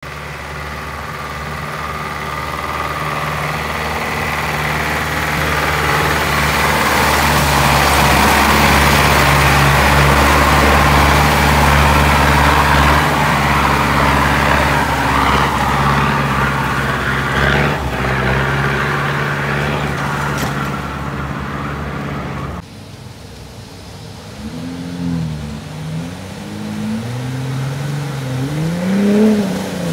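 GAZ-66 army truck's V8 engine labouring steadily as it drives through deep mud, growing louder as it comes closer. After a sudden cut about two-thirds of the way through, a pickup's engine revs up and down repeatedly as it works through muddy ruts.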